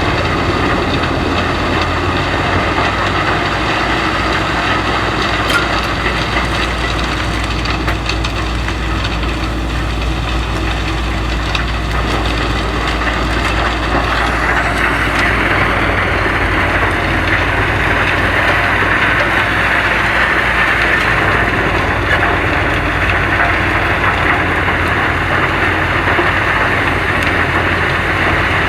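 Engine-driven woodchipper running and chipping wood, a steady engine hum under dense crunching and splintering. The grinding turns harsher about halfway through.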